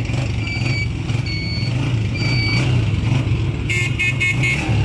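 Honda CG 125's single-cylinder four-stroke engine idling steadily.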